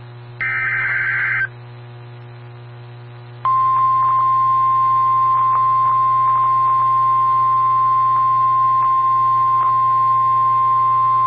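NOAA Weather Radio emergency alert: a short, harsh burst of SAME digital header data, then about three seconds in the steady 1050 Hz Warning Alarm Tone begins and holds, over a low receiver hum. It signals that a warning, here a tornado warning, is about to be read.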